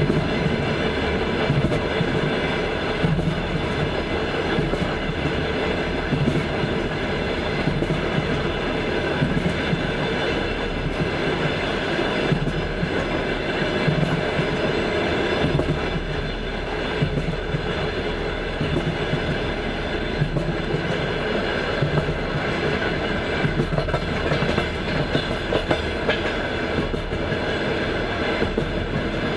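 Passenger train's wheels running over rail joints with a steady clickety-clack, over the continuous rumble of the moving carriage.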